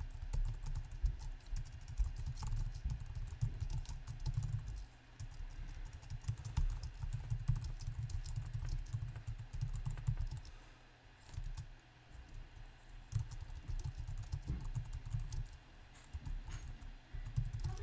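Typing on a computer keyboard: a quick, uneven run of key clicks, with a brief pause a little past halfway.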